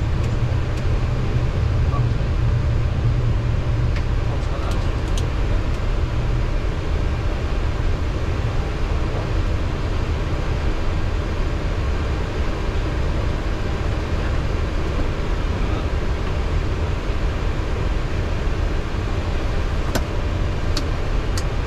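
Steady cockpit noise of a Boeing 737-800 taxiing: the low rumble of its CFM56 engines at idle thrust under a hiss of cockpit airflow. A few sharp switch clicks come near the end as an overhead-panel switch is set.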